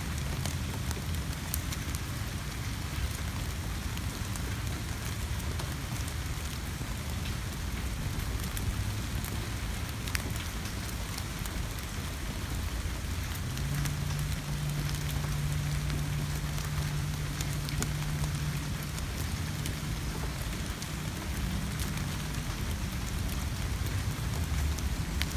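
Spring rain falling on leaves and flowers: a steady patter with many distinct drop ticks. A low steady hum joins for several seconds a little past halfway.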